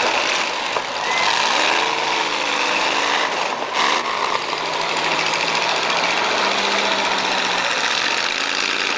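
Demolition derby cars' engines running and revving together in a dense, steady din, with engine notes rising in pitch now and then. A single short, sharp noise, possibly a collision, stands out just under four seconds in.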